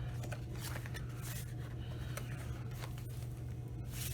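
Paper rustling as the pages of a thick collage book are handled and turned, in short soft swishes, the strongest about a second in and near the end, over a low steady hum.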